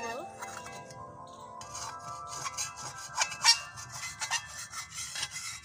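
Metal ladle scraping and knocking against an aluminium karai while stirring milk at the boil; the loudest knock comes about three and a half seconds in. Under it, background music with held chime-like tones.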